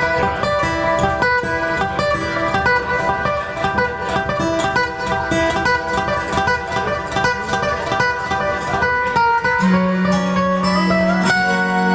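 Solo classical guitar played fingerstyle: a quick, continuous run of plucked notes. Near the end a long steady low note is held under the picking.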